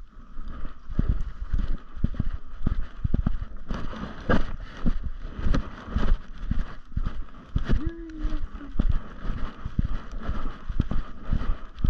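Footsteps on a dry, leaf-strewn dirt trail, about two thumps a second, with the microphone jostling in step as the walker moves. A brief low tonal sound comes about eight seconds in.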